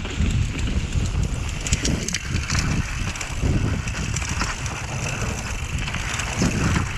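Mountain bike rolling fast down a dirt and gravel trail: wind buffeting the camera microphone over the tyre noise, with scattered clicks and rattles from stones and the bike.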